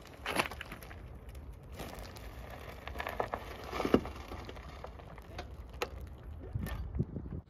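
Blue trolley floor jack being pumped up under the car's sill: irregular clicks and a few louder metallic knocks from the jack and its handle, with gravel crunching under it.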